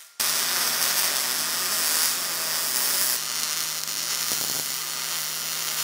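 Millermatic 211 MIG welder running a bead joining electrical conduit to 16-gauge sheet steel: a steady crackling hiss with a low hum underneath. It starts abruptly just after the beginning.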